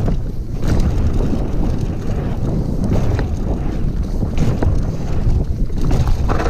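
Wind rushing over the microphone while riding an electric mountain bike down a rough trail, with scattered knocks and rattles from the bike over the ground.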